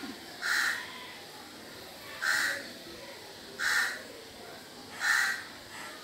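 A crow cawing four times, short calls spaced about a second and a half apart.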